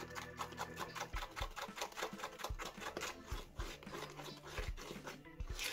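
A utensil stirring thick, foamy slime of dough, water and shaving foam in a bowl, making a rapid, even run of small wet clicks and squishes as the mix thickens.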